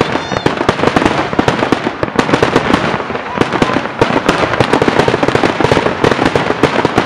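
Fireworks display going off in a dense barrage: many overlapping bangs and crackles every second with no pause, and a brief high whistle just after the start.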